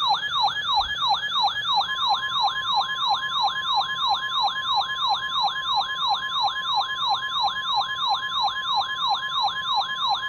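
Loud electronic siren-like sweep, falling and snapping back up about three times a second. From about two seconds in, the steady 1050 Hz NOAA Weather Radio alert tone sounds beneath it, signalling a severe thunderstorm warning about to be read.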